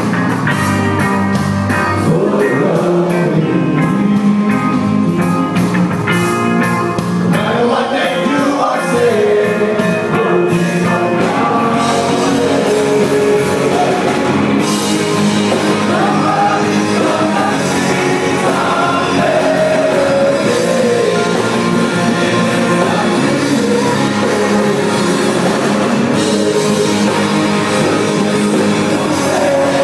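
Live rock band playing: a male singer over electric guitar, bass guitar and drums.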